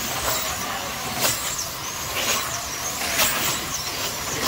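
Slot-car trucks racing around a multi-lane track, their small electric motors whining in high gliding pitches as the cars sweep past about once a second.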